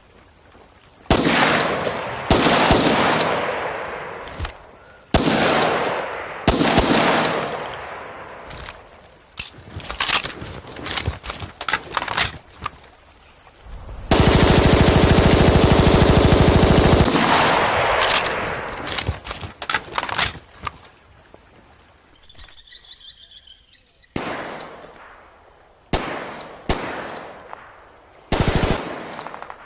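M1A1 Thompson submachine gun firing .45 ACP on full auto in repeated bursts, each trailing off in echo, with one long burst of about three seconds near the middle. A faint ringing comes in between bursts about two-thirds of the way through.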